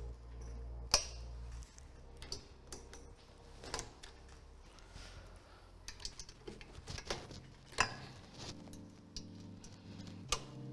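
Torque wrench tightening steel bolts into a balloon burner's manifold block: light, irregular ratchet ticking with several sharp, louder metallic clicks, the loudest about a second in.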